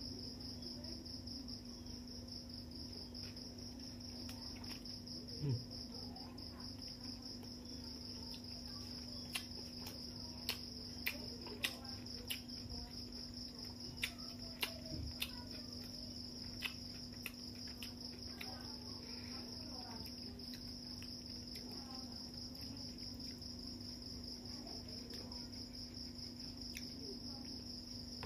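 Crickets chirring steadily in a high, even drone, with scattered short sharp clicks and smacks of someone eating rice with the fingers, mostly in the middle of the stretch.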